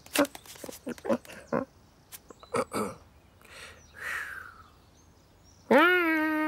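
Human-voiced cartoon cat sounds: a string of short little chirps and clicks, then a few soft breathy noises. Near the end comes one long, loud meow from the white cat that rises, holds and falls.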